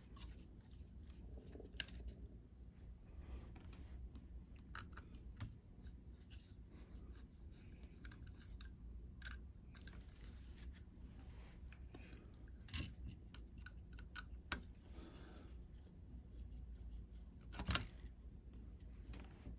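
Faint scattered clicks and light scrapes of a small screwdriver turning out the tiny screws that hold a mini PC's CPU fan, with a few sharper clicks now and then over a low steady hum.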